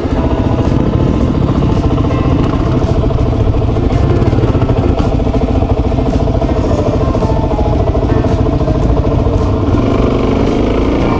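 Suzuki DRZ400S's single-cylinder four-stroke engine running steadily while riding a dirt trail; near the end the revs climb.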